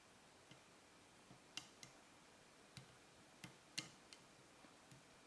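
Lock pick working the serrated pins of an American 5200 series five-pin padlock under tension. About ten faint, sharp clicks come at irregular intervals as pins are lifted and set.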